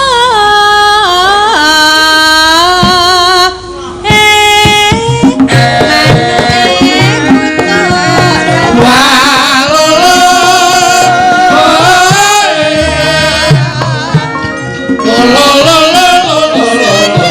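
Javanese gamelan music with a sinden, a female singer, singing a high, wavering vocal line with heavy vibrato; a kendang drum rhythm joins about five seconds in.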